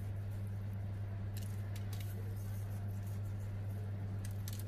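Sesame seeds sprinkled by hand pattering onto dough and baking paper in a few faint, scattered ticks, a little more often near the end. A steady low hum runs underneath.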